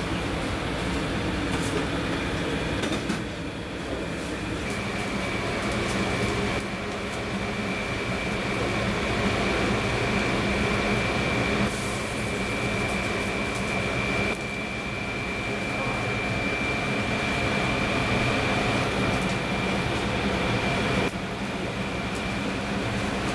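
Steady kitchen hum and hiss around a pot of dark broth boiling on a gas burner, with a thin, steady high whine running through the middle.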